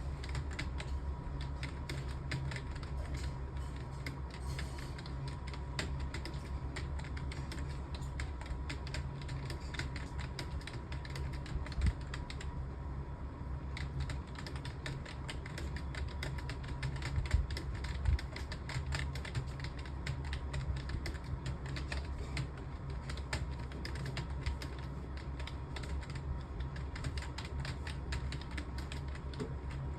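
Fast, continuous typing on a computer keyboard: a rapid stream of key clicks with a short pause a little before halfway. A steady low hum runs underneath.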